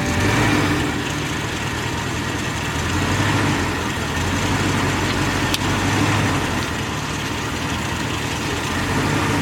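Van engine running at low speed, swelling slightly every few seconds, with one sharp click about halfway through.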